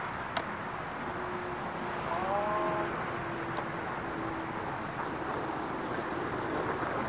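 Steady outdoor background noise, an even rushing haze like distant traffic, with a short rising pitched call about two seconds in and a faint click near the start.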